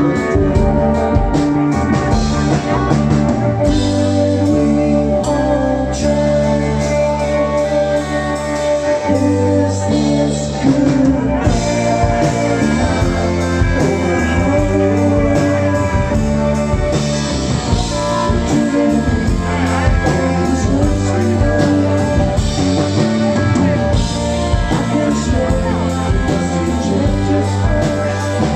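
Rock music: a band with electric guitar, bass and drums playing, with singing.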